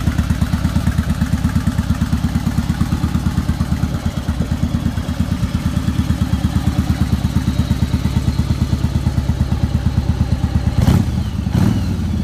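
1992 Yamaha Virago's air-cooled V-twin idling steadily with an even, quick pulse, freshly tuned and running well. Near the end come a couple of sharp knocks.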